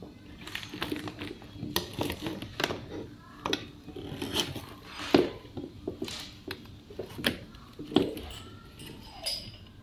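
Hands handling a steam cleaner's coiled rubber hoses and its hard plastic carry case: irregular knocks, clicks and rustles, the loudest knocks about five seconds in and again near eight seconds.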